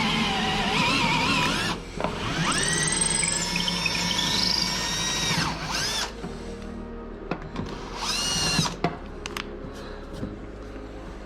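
Power drill drilling a bolt hole for the trolling-motor mount. Its motor whines with a wavering pitch under load, runs steadily for about three seconds and winds down, then gives one short burst near the end. Light clicks follow.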